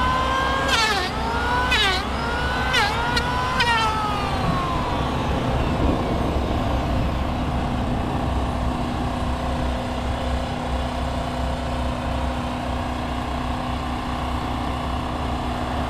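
An engine revs up in a series of rising sweeps, each breaking off and climbing again, for the first four seconds, then falls in pitch and settles into a steady low drone.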